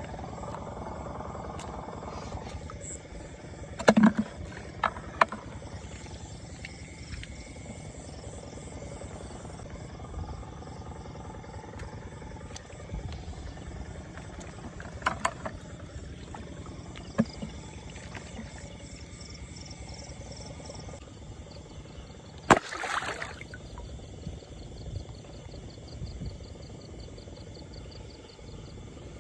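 Night chorus of insects and frogs over a flooded rice paddy, steady with fast high-pitched pulsing. A few sharp knocks and splashes of water break in, the loudest about 22 seconds in.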